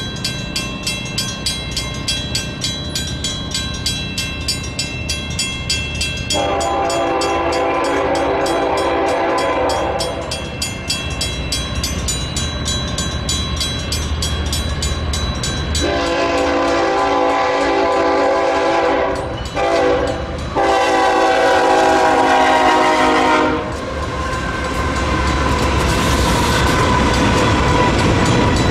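Mechanical railroad crossing bells ringing in a fast, even beat. A BNSF freight locomotive's air horn sounds a long blast about six seconds in and two more long blasts from about sixteen seconds in. The train's rumble swells near the end as it reaches the crossing.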